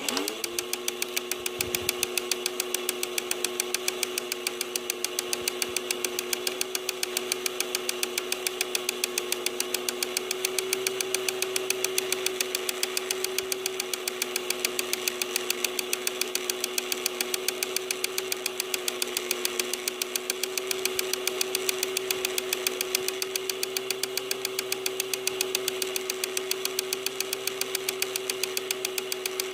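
Dux elkino 900 toy film projector switched on. Its motor whines up to speed within the first second, then runs with a steady hum and the fast, even clatter of the film transport.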